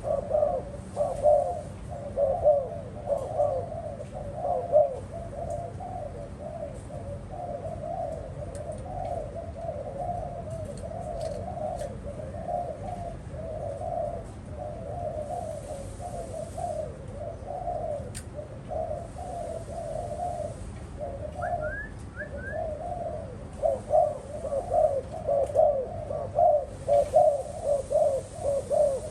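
Spotted doves cooing over and over, with louder calls near the start and again in the last few seconds. Three short high chirps come about three-quarters of the way through.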